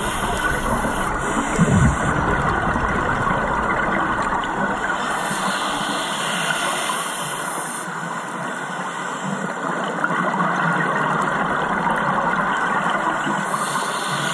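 Scuba diver's regulator exhaust bubbling in bursts a few seconds long, about every eight seconds, over a steady underwater hiss.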